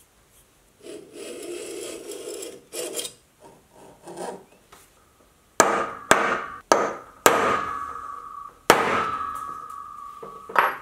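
Scraping strokes across the face of a mild steel bar, then about six sharp metallic strikes of a hammer on a centre punch marking hole positions. The steel bar rings after each strike.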